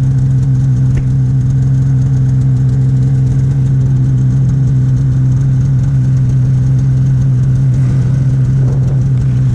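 Snowmobile engine running at a steady, unchanging speed.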